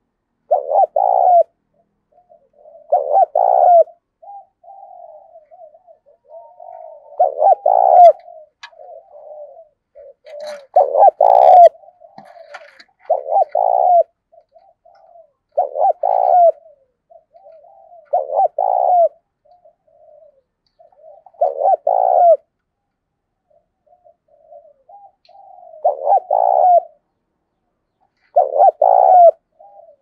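Spotted dove cooing at close range: a loud coo phrase about every two to three seconds, about ten in all, with softer cooing notes between them.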